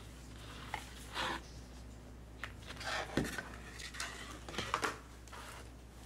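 A few short, scattered scrapes and clicks of a hand handling the plastic base trim at the bottom of a two-door refrigerator, over a steady low hum.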